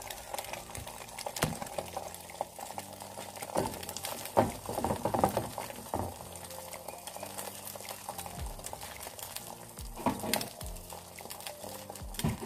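Beaten eggs frying in a non-stick pan: a steady sizzle and crackle, with a few short knocks and clicks from the pan being handled.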